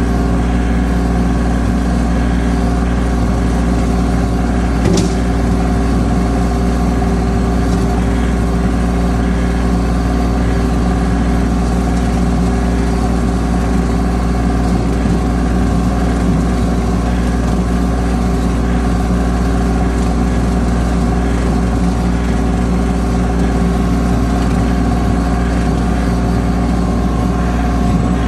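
Yanmar compact tractor's diesel engine running steadily at a constant speed while the tractor drives through tall weeds. A single sharp click is heard about five seconds in.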